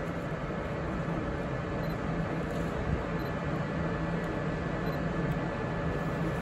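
Steady low rumble and hum of railway station ambience around a train, with a faint high whine held throughout.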